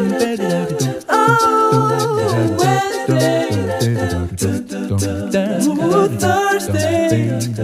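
A cappella vocal music: several voices singing together over a sung bass line.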